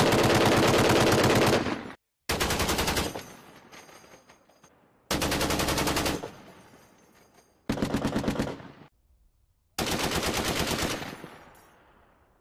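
Browning M2 .50-calibre heavy machine guns firing five short bursts of rapid shots, each lasting about a second and dying away in echo afterwards. The first burst cuts off abruptly.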